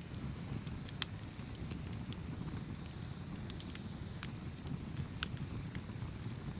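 Wood fire burning with a low steady rumble and scattered crackles and pops, with a sharp pop about a second in and another a little after five seconds.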